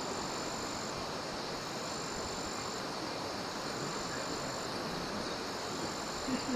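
Steady rushing outdoor background noise, with a thin, high-pitched insect call repeating about every two seconds, each call lasting about a second.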